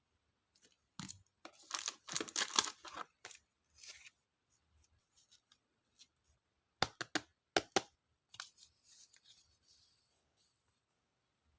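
Stationery packaging being opened by hand. A flurry of crisp cutting and tearing rasps comes first, then a quick run of sharp snips or clicks about seven seconds in, then softer rustling of paper or plastic.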